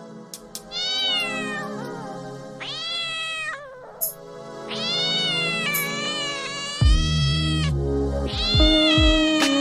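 A cat meowing four times, the third call long, over background music whose deep bass line comes in about seven seconds in.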